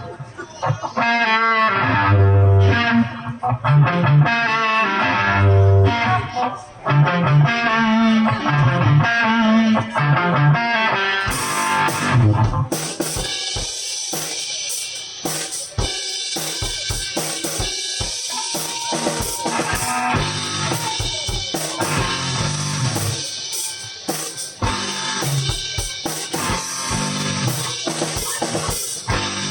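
Live rock band playing an instrumental intro: guitar and bass over low pulses about every two seconds, then the drum kit comes in about twelve seconds in with cymbals and snare, and the full band plays on without vocals.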